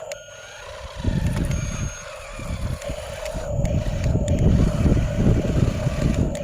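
Heavy earth-moving machinery running: a steady droning whine over a rough low rumble that comes up about a second in and grows louder from about four seconds.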